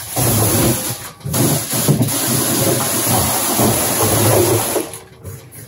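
Rustling and scraping as cardboard boxes and stored items are shifted on an overhead storage shelf. The noise is loud and continuous, dips briefly about a second in, and stops near the end.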